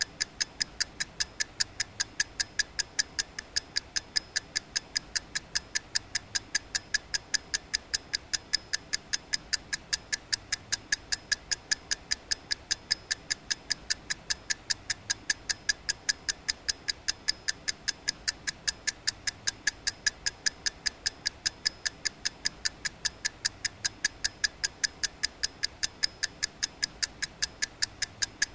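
Ticking clock: sharp, evenly spaced ticks, several a second, keeping an unbroken rhythm throughout.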